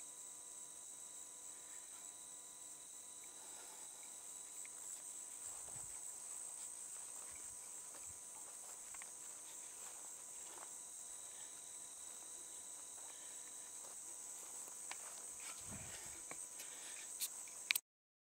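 Crickets and other night insects trilling steadily in a high, continuous chorus. A few soft knocks come partway through, and a couple of sharp clicks sound near the end before the sound cuts off suddenly.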